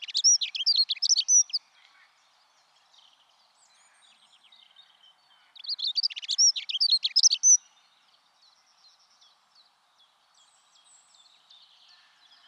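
A songbird singing two short, rapid song phrases of about two seconds each, the second starting about five and a half seconds in, with fainter chirps in between and after.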